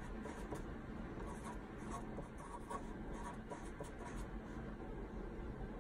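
Fine-tip marker writing letters on paper: a quick, irregular run of short strokes as each letter is formed.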